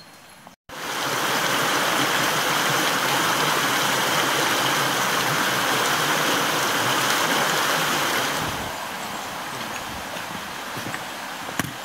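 Mountain stream rushing and splashing over rocks, a loud steady rush of water. About eight seconds in it drops to a fainter steady hiss, with a single knock near the end.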